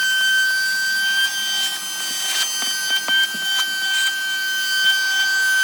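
A steady high-pitched whine from a running machine, with scattered scraping and clicking over it.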